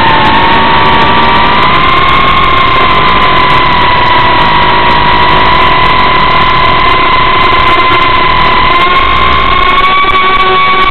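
Reptile Cloud 149 V2 FPV quadcopter's motors and propellers whining steadily, heard from the camera on the drone, over a rush of noise. The pitch rises slightly about two seconds in and again near the end as the throttle changes.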